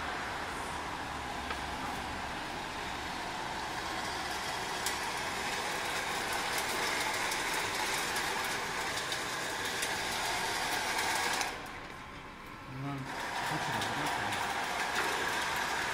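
Compact narrow-strip metal slitting machine running steadily as the strip feeds through, with a brief quieter dip about twelve seconds in.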